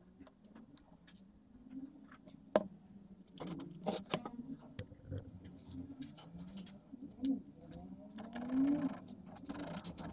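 Hand work on small graphite brushes for an angle grinder: scattered clicks and taps of parts and tools, one sharp knock about two and a half seconds in, then a scraping rasp in the last couple of seconds as a brush is worked against a stone slab. Low wavering tones rise and fall faintly in the background.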